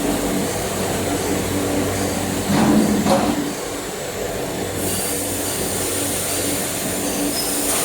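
Industrial bubble washing machine running: a steady motor hum over a rushing noise. A louder, rougher surge comes about two and a half seconds in, and a brighter hiss joins about five seconds in.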